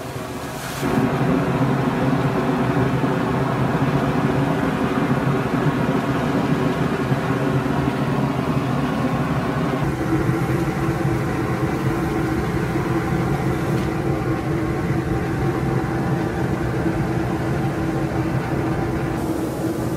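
Jigokudani hot-spring geyser jetting water and steam: a steady rushing roar that gets louder about a second in and changes in tone about halfway through.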